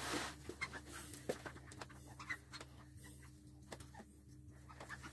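Faint panting of a dog, with small scattered clicks and rustles over a steady low hum.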